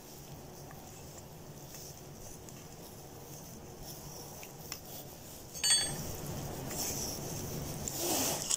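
A plastic spork scraping and tapping faintly in a metal plate of noodles, then one sharp clink about two-thirds in as the plate rings briefly, followed by rustling.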